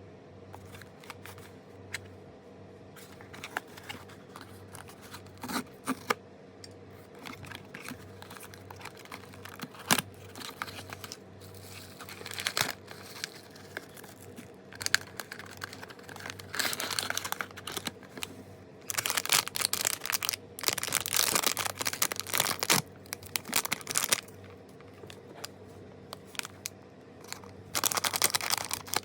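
Blind-box packaging being handled and opened: scattered clicks and taps, then stretches of plastic-wrapper crinkling and tearing a little past halfway and again near the end, over a faint steady hum.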